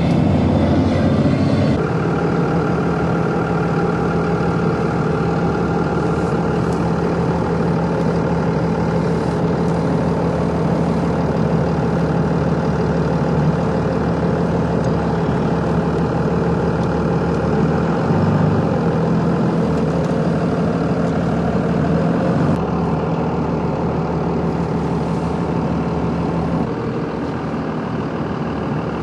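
A vehicle engine running at a steady pitch, with small shifts in its note a couple of times.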